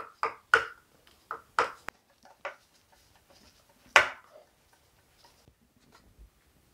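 Sharp knocks and taps of a hand tool and screws on a wooden spar, each with a short ring: a quick run of about seven in the first two and a half seconds, then one louder knock about four seconds in, and a few faint ticks after.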